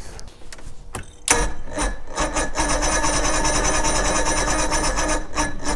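Electric starter cranking an old Johnson 90 hp V4 two-stroke outboard for about four seconds, starting sharply a little over a second in and stopping near the end, with a steady grinding whine. The engine does not catch.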